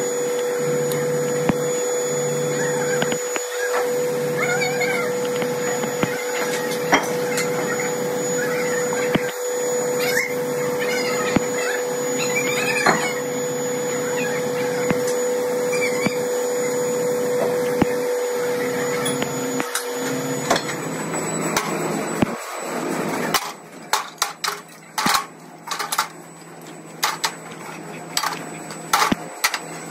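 Workshop machine running steadily with a fixed hum and a few light knocks. About 21 seconds in it winds down, and from about 23 seconds there is a string of sharp metallic clinks and knocks, like cast iron parts being handled.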